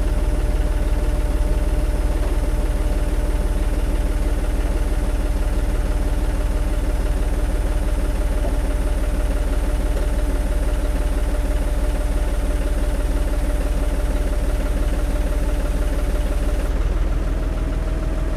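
John Deere 5065E tractor's diesel engine running steadily at idle while its front loader lifts a hanging band saw; the engine note shifts slightly near the end.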